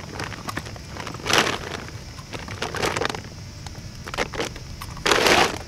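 Woven plastic shopping bag rustling and crinkling in several irregular bursts as a carp is handled into it, the loudest burst near the end.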